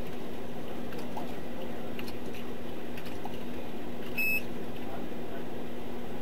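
Steady low hum and hiss, with faint ticks and one short electronic beep about four seconds in.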